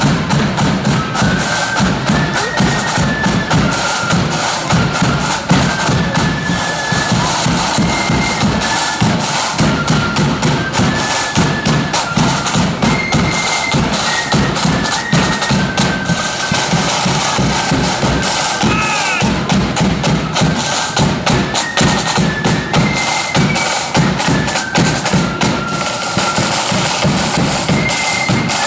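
Marching flute band playing on parade: rapid side-drum rolls and strokes over a steady bass drum, with a shrill flute melody of held, stepping notes above.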